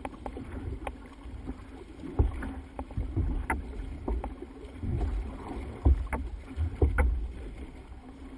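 Water splashing and slapping against the hull of a racing outrigger canoe under way through chop. Irregular low thumps come about once a second, and sharp clicks are scattered through.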